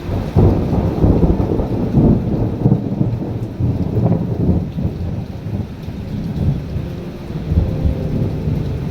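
A long rolling thunder rumble over steady rain. It breaks in suddenly about a third of a second in, crackles and rumbles low for several seconds, then eases off toward the end.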